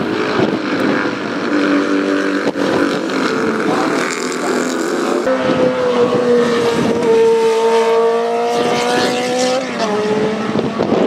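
Vintage racing motorcycle engines running hard as bikes go through a corner on track. About five seconds in, a closer engine note comes in that dips and then climbs again before fading.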